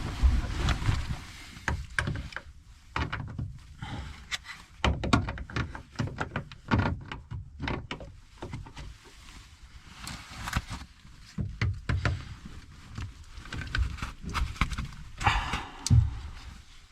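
Scattered knocks, clicks and clunks of hand work with tools and hardware, with low thumps and rustling handling noise in between.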